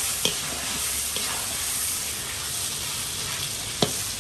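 Chunks of meat sizzling as they sear in hot rendered sheep's tail fat in a large kazan, the meat crusting over fast. A metal spatula stirs them and knocks sharply against the pot near the start and again near the end.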